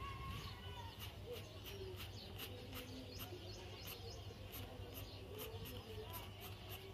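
Graphite pencil scratching across paper in short repeated hatching strokes, about three a second. Birds chirp faintly in the background over a low steady hum.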